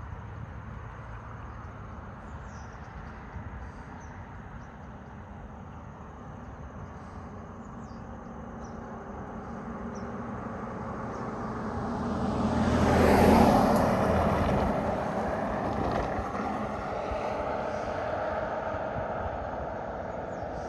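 A car passes close by on the road: its tyre and engine noise swells to a peak about 13 seconds in and then fades as it moves away. A few faint bird chirps are heard over a steady outdoor background.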